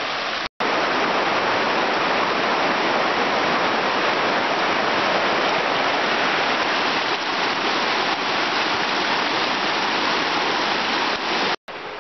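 Shallow river rapids rushing and splashing over rocks, a steady rush of water. It cuts out for a moment about half a second in and again just before the end.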